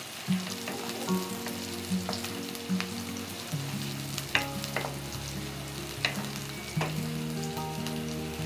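Chopped and sliced onions sizzling as they fry in soybean oil in a wok, stirred with a wooden spatula that scrapes and knocks against the pan now and then. Soft background music plays steady notes underneath.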